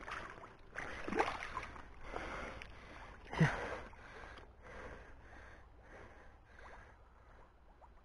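Shallow pond water sloshing and swishing around the legs of a person wading through it, one swish per stride. The loudest splash comes about three and a half seconds in, and the strokes grow fainter after that.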